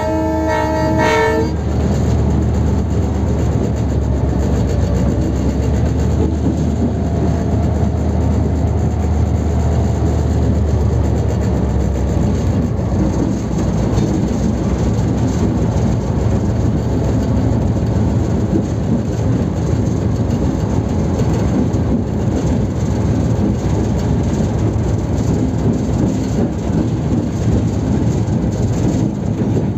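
Diesel locomotive's horn sounding one short blast at the start, then the locomotive's engine running with a steady low drone and its wheels clattering over the rails. The drone eases about twelve seconds in, leaving a rougher rumble of the wheels on the track.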